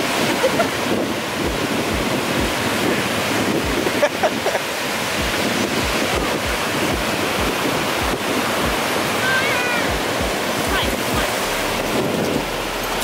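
Ocean surf washing in steadily, with wind buffeting the microphone in low thumps.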